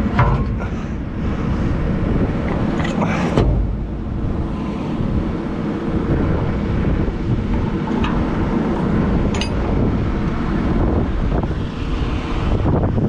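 Heavy diesel engine running steadily in the background, with a couple of short metallic knocks as the feed wagon's drawbar and jack stand are handled on the steel deck, one near the start and one about three seconds in.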